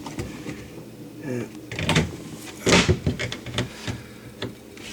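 Scattered knocks, clunks and rustling of hands handling the water line and parts inside a kitchen sink cabinet, with one louder scraping knock a little past the middle.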